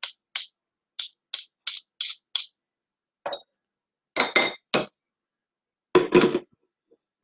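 A metal spoon tapping and clinking against a stainless steel mixing bowl, about seven light clinks in the first two seconds or so, knocking the cake mix off the spoon. Then fuller clatters as the utensils are set down, and near the end the loudest clunk and rattle as the steel bowl is set onto the stand mixer.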